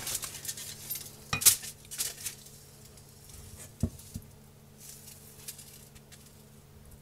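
A few scattered clinks and knocks of kitchen utensils and dishes being handled, over a faint steady hum.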